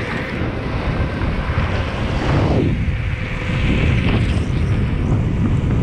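Wind buffeting the microphone of a camera on a moving bicycle: a loud, steady rush, heaviest in the low end, with a falling whoosh about halfway through.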